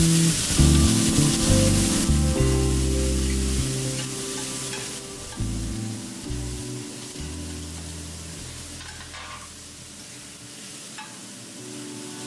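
Cauliflower rice sizzling in a hot stainless steel skillet while it is stirred, with the odd clink of metal tongs against the pan; the sizzle is strongest in the first few seconds and then fades.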